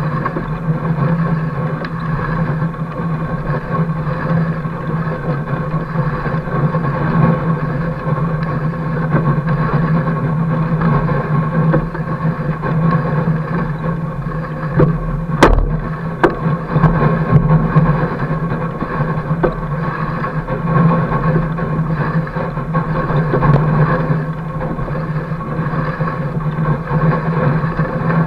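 Fat bike tyre rolling over packed snow, a steady rumble and hum carried through the fork-mounted camera, with one sharp click a little past halfway.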